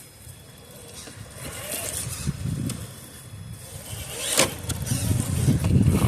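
Traxxas TRX4 RC crawler's electric motor and drivetrain working in two spells as it crawls over rocks, with a sharp knock about four seconds in.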